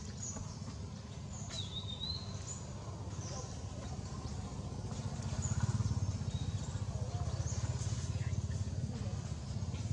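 Outdoor background: a steady low rumble that swells about halfway through, with scattered short high chirps over it.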